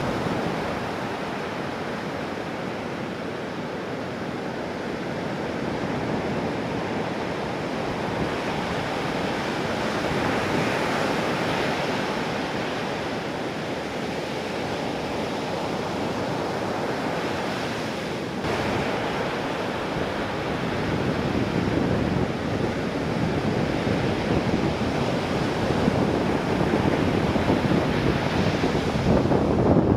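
Heavy typhoon-swell ocean surf breaking and washing, with wind blowing on the microphone. The surf grows louder in the last third.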